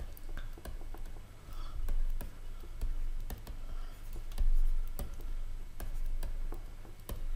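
Stylus tapping and scratching on a tablet screen during handwriting: irregular small clicks, over a steady low electrical hum.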